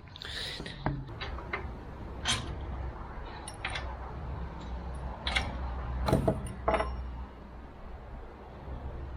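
Scattered metallic clinks and knocks of tools and parts as an old air compressor is being stripped down, about eight sharp ones, a few with a short ring, the loudest about six seconds in. A low steady hum lies underneath.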